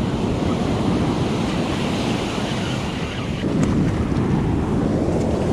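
Ocean surf breaking and washing on a beach, a steady rush that swells a little partway through, with wind buffeting the microphone.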